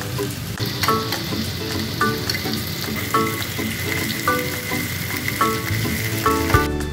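Spiced chicken pieces frying in oil in a non-stick pan, a steady sizzle that cuts off just before the end. Background music with a repeating melody of short notes plays throughout.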